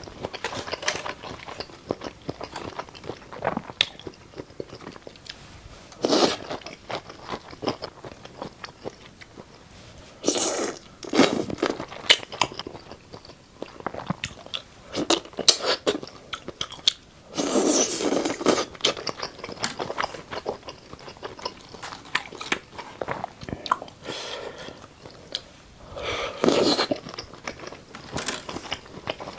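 Someone eating bobo chicken skewers in red chili oil: crunchy bites and chewing in irregular bursts, with short pauses between mouthfuls.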